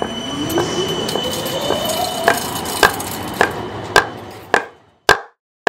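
An electric rail vehicle's motor whine rising in pitch as it speeds up, over street noise. Evenly spaced sharp knocks, a little under two a second, start about halfway through and carry on alone after the background fades out near the end.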